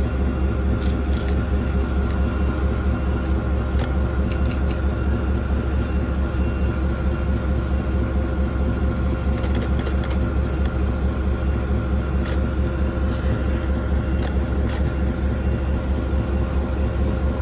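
Diesel locomotive engine running steadily, a deep hum with a steady hum of tones above it. Short sharp clicks come and go, several clustered about ten seconds in.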